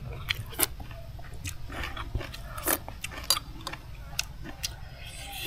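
A person eating with a spoon from a ceramic bowl: irregular light clicks of the spoon against the bowl, about a dozen in all, with chewing in between.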